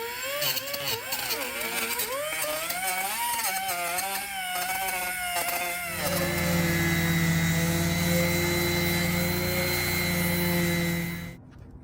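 Small electric grinder cutting down the protruding tabs of stainless steel repair staples in a plastic bumper. Its pitch wavers up and down as it bites for about the first six seconds, then it runs at a steady pitch and stops shortly before the end.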